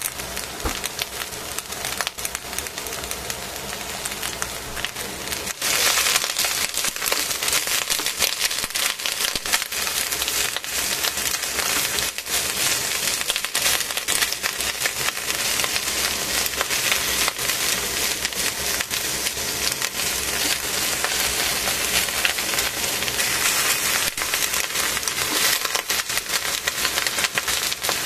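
Cabbage, carrot and shimeji mushrooms sizzling and crackling in a hot stainless-steel pot, growing louder about six seconds in.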